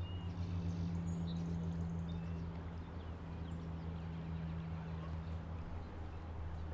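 Outdoor ambience of faint, scattered bird chirps over a steady low hum.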